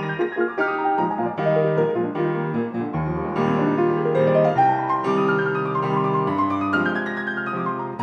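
Background piano music, with a run of notes climbing and later a run falling.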